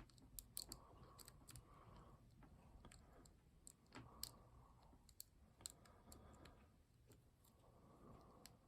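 Faint, scattered small clicks of a lock pick working inside a lock's keyway, raking and probing the pins, which fail to set.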